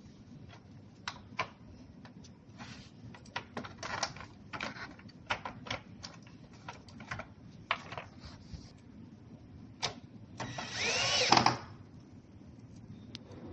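Scattered clicks and knocks of hand work on metal and plastic parts, then a power drill runs for about a second near the end, its whine rising and falling.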